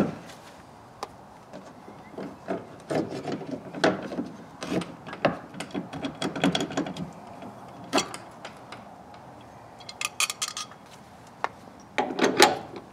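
Irregular knocks, scrapes and rubbing of wood and metal as a wooden shop door and its loose hinge bolts are handled and worked into position. A sharp knock comes about eight seconds in, a quick run of clicks near ten seconds, and the loudest clatter near the end.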